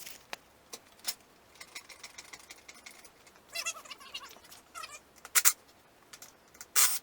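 Metal-on-metal clicks and clinks from jacking up an ATV and taking off its rear wheel, with a sharp clank a little past the middle and a longer rattle near the end. A few short high squeaks come in between.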